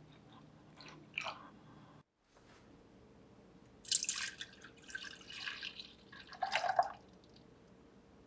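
Liquid splashing and dripping in three short bursts, the loudest about four seconds in and just before the seventh second.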